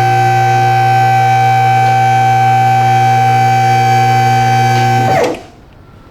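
Electric hydraulic pump motor of a car lift running with a loud, steady hum while raising the car. The motor shuts off about five seconds in, its pitch dropping briefly as it winds down.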